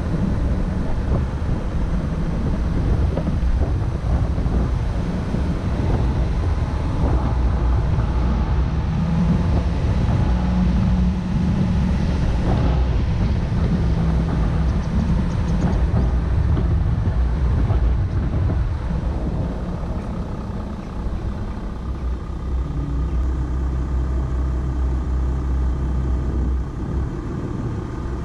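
Volkswagen Amarok pickup's engine running at low speed on an off-road course, a steady low rumble with a couple of short knocks from the vehicle. It settles into a steadier, slightly quieter drone in the last few seconds.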